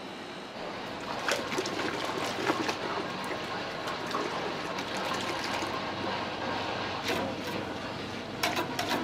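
Soy sauce pouring from a large plastic bottle into a stainless stockpot of liquid, then a whisk stirring the pot vigorously, with a few sharp clicks near the end.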